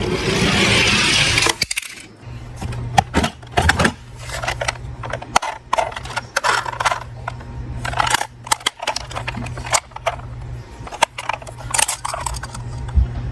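Small metal diecast toy cars clinking and clattering as they are handled, in irregular sharp clicks over a steady low hum. A rushing hiss fills the first second and a half.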